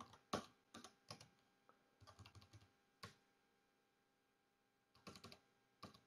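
Faint, scattered keystrokes on a computer keyboard: single taps and a short run of keys about two seconds in, with a pause of almost two seconds before a few more taps near the end.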